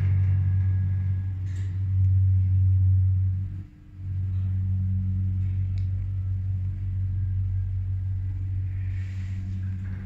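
Leistritz hydraulic freight lift's pump unit running with a steady low hum while the car travels, dipping briefly about three and a half seconds in.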